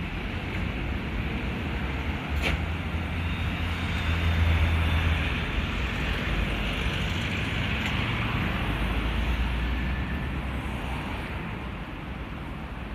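Road traffic: cars passing on an adjacent road, a steady mix of tyre and engine noise that swells a few seconds in and eases off near the end.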